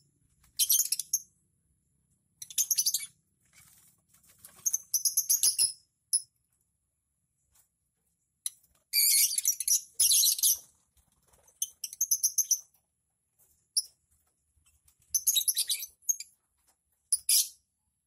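A flock of lovebirds chattering in shrill, high chirps that come in short bursts of a second or two, with quiet gaps between. The longest and loudest burst is around nine to ten seconds in.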